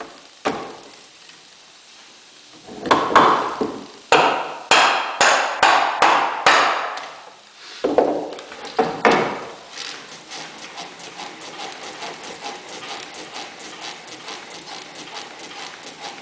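A hammer striking wood, about a dozen sharp blows, some in quick runs. About ten seconds in, the blows give way to a faster, even ticking rhythm.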